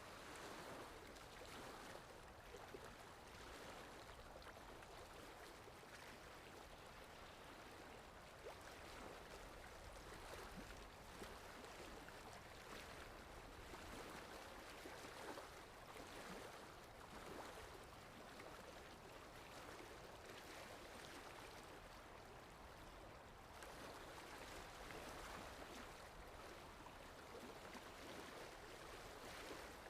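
Sea waves washing in gently, a soft steady rush of water that swells and eases every few seconds.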